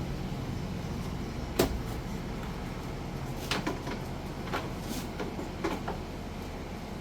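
A few sharp knocks and clicks, the loudest about one and a half seconds in and several more in the second half, over a low steady hum.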